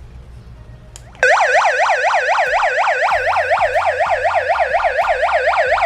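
Electronic emergency siren of a Kelvin 8 handheld car emergency tool, switched on about a second in and wailing in fast, even pitch sweeps, about four or five a second, loud and shrill.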